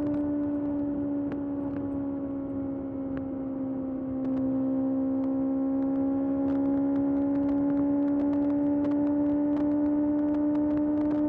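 Kawasaki ZX-6R's inline-four engine running at steady high revs while cruising. The pitch and level dip slightly about three seconds in as the throttle eases, then pick back up and hold steady.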